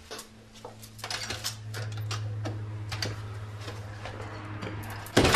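Wooden front door being unlatched and opened: a run of small clicks and knocks over a low steady hum, then one loud thump about five seconds in.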